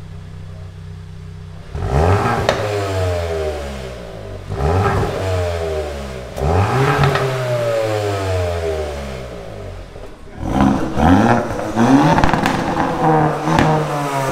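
Hyundai i20 N's 1.6-litre turbocharged four-cylinder through a Milltek downpipe and cat-back exhaust: it idles, then is revved sharply three times, the pitch falling back after each rev. A run of quick rev blips follows near the end.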